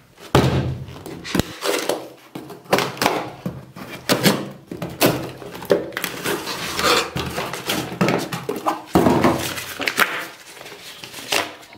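A cardboard delivery box being handled, cut open and unwrapped, with its brown paper wrapping torn off: irregular rustling, scraping and tearing, with short knocks of the box against the table.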